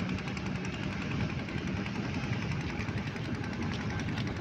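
Motor boat engine running steadily with a continuous low rumble.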